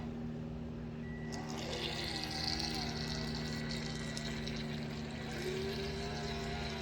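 Small electric motor of an RC speedboat humming steadily, with water washing and splashing around it.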